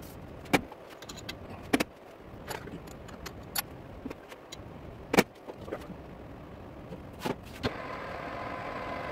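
Sharp metallic clicks and knocks of parts and tools being handled at a metal lathe, about seven of them spread irregularly, then about eight seconds in a steady whine starts as the lathe runs.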